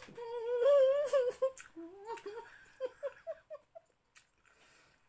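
A woman humming through a closed mouth in a wavering, strained voice as she eats a sour lemon slice, then breaking into a string of short giggles that grow shorter and fainter and die out about four seconds in.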